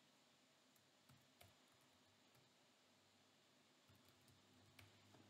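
Near silence, with a few faint, scattered clicks of computer keyboard keys being typed.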